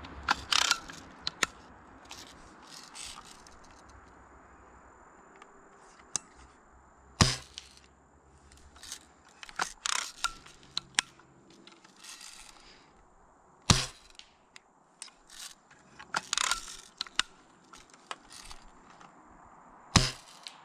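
Daisy Buck 105 lever-action BB gun fired three times, a sharp snap every six and a half seconds or so. Between shots come quick runs of smaller clicks and clatter as the lever is worked to cock it.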